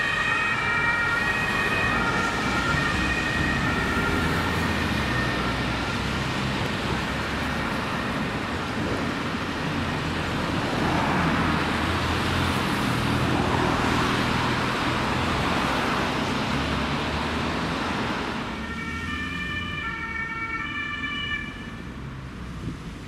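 German two-tone emergency siren (Martinshorn) on an ambulance, fading at the start as it drives away, followed by loud road traffic passing close by. About 19 s in, a two-tone siren sounds again for a few seconds.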